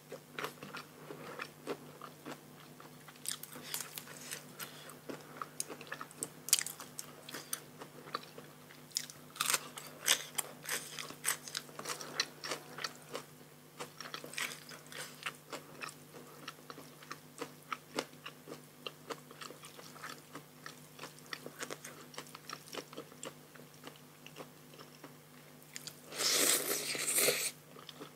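Close-miked eating: crisp crunchy bites and wet chewing, in many short crackles, with a louder, longer noisy stretch near the end.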